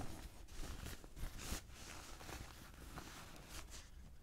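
Close-miked handling of a Samyang 24mm f/1.4 manual-focus camera lens: soft irregular taps, clicks and light scratching, with a couple of sharper ticks about a second in and again half a second later.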